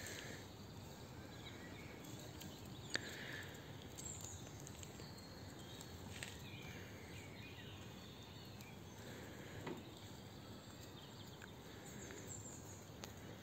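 Faint outdoor ambience: a steady background hiss with faint, scattered high bird chirps and a few sharp clicks.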